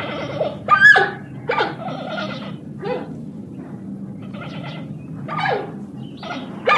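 An animal's repeated short cries, each sliding down in pitch, about one or two a second, over a low steady hum.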